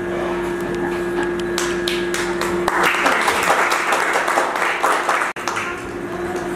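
Audience applauding: a few scattered claps at first, building to steady applause for a couple of seconds, then cutting off suddenly.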